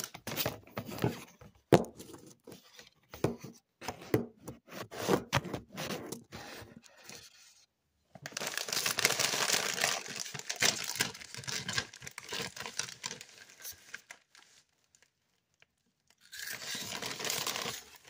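Foil snack bag of Doritos Dinamita Sticks crinkling and tearing as it is opened and handled. Scattered sharp crackles come first, then a longer dense rustle from about eight seconds in, and another short burst near the end.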